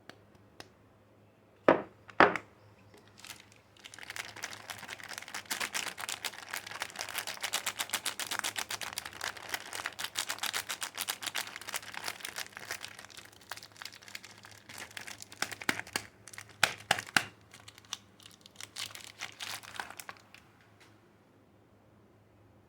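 Soap packaging being unwrapped: a dense run of crinkling and rustling of the wrapper, with some tearing. Two sharp taps about two seconds in are the loudest sounds, and a few more come near the end before it stops.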